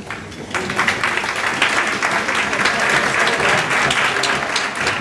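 Audience applauding, a dense patter of many hands clapping that starts about half a second in and holds steady.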